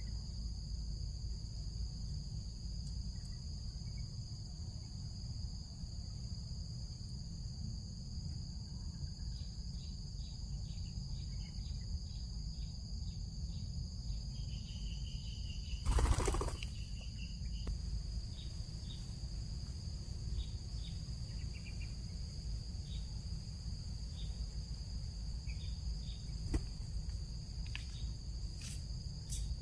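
Insects, likely crickets, trilling in a steady high continuous tone over a constant low rumble, with faint short ticks and one loud knock about halfway through.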